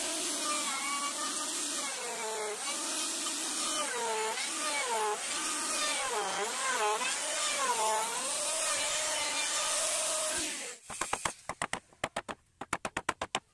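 Handheld electric router cutting a curved profile along the edge of a teak door panel, its motor whine dipping and rising in pitch as the bit bites into the wood. The router cuts off about eleven seconds in, followed by a quick run of short taps.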